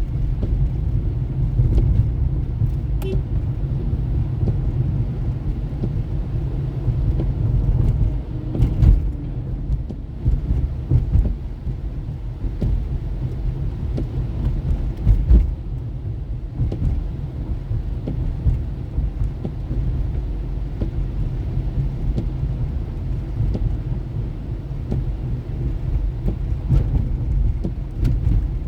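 A car driving, heard as a steady low rumble of engine and road noise, with a couple of brief louder thumps partway through.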